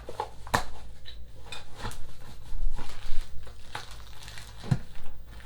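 Parts and packaging being handled: plastic packaging crinkling, with a few sharp clicks and knocks of small hardware and a heavier knock near the end as things are set down.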